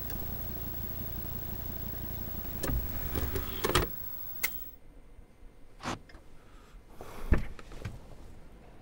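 Car stereo's CD player ejecting a disc, with a short run of mechanical clicks about three seconds in, after which a low steady hum stops. A few soft knocks follow, the loudest about seven seconds in.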